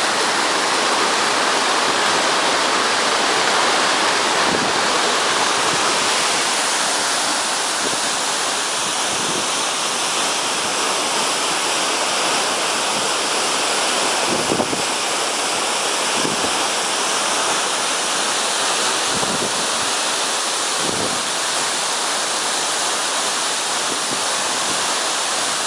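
Waterfall: a steady, loud rush of falling water, with a few brief low bumps in the second half.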